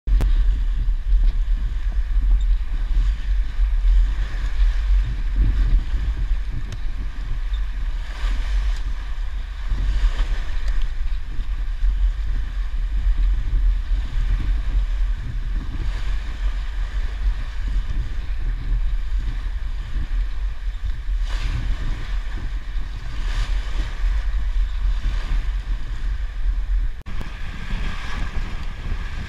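Water rushing and splashing along a heeled sailboat's hull as it sails through waves, swelling every few seconds as a wave breaks against the side, under a heavy rumble of wind on the microphone. Near the end the wind rumble suddenly drops and the splashing water sounds brighter.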